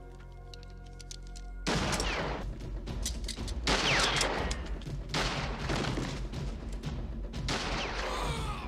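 Movie sound effects of a long volley of rapid gunfire from a handgun, starting suddenly about two seconds in, with ricochet whines among the shots. A tense music score plays underneath.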